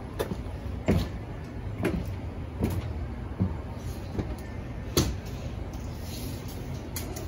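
A series of short thumps and knocks from the enclosed cargo trailer, about one a second, over a steady low rumble; the loudest come about a second in and near the five-second mark.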